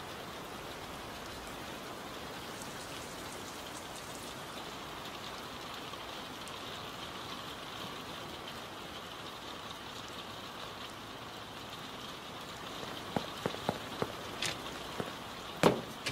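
Steady rain. Near the end come a few short, sharp knocks, the loudest just before the end.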